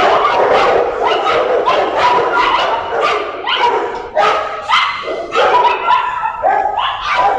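Several kennel dogs, Rottweilers, barking repeatedly, about two barks a second, with barks from more than one dog overlapping.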